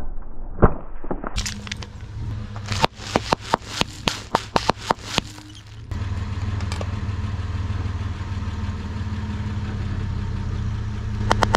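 A car tyre rolling onto an aluminium soda can, which gives a run of sharp cracks and pops as it crumples. Then the car's engine runs steadily at a crawl, and the first cracks come near the end as the tyre presses onto a round LED downlight.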